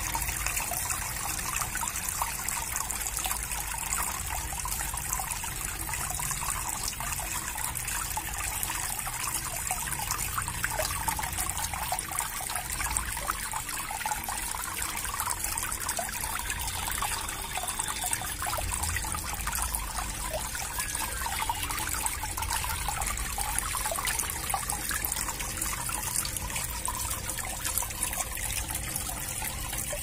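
Water trickling and splashing steadily as a tiered clay-pot fountain pours into a garden pond.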